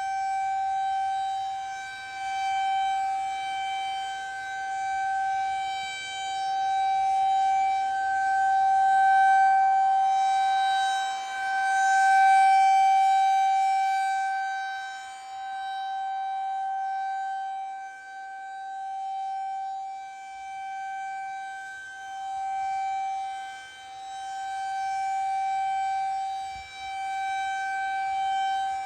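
Federal Signal 2001-SRN rotating outdoor warning siren sounding its monthly test with one steady, unchanging tone. The tone swells and fades every few seconds as the rotating head sweeps toward and away.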